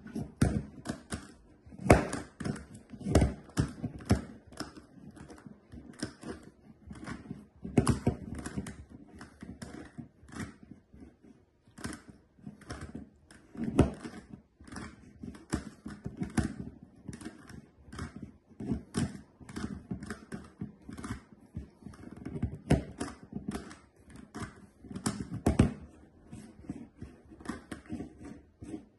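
A GAN Megaminx (dodecahedral twisty puzzle) being turned one-handed: a fast, irregular run of plastic clicks and clacks as its faces turn, with a few louder knocks among them.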